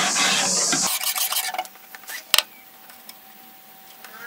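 A hand file rasping back and forth across a 4.5 mm Sleipner steel knife blade in quick strokes, cutting the bevel by hand. The filing stops abruptly about a second in, a few lighter scrapes follow, and a single sharp click comes a little after the middle.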